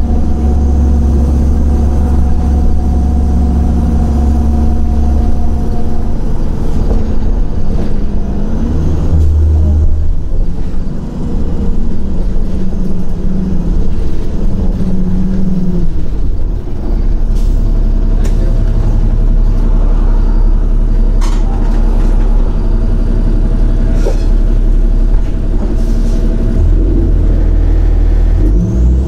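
Cummins ISL inline-six diesel engine of a 2006 Orion VII transit bus, running with a deep steady drone. For several seconds midway its pitch rises and falls with the revs, then it settles to a steady drone again.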